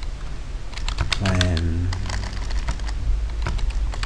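Computer keyboard keys clicking in a quick, irregular run of typing, starting about a second in.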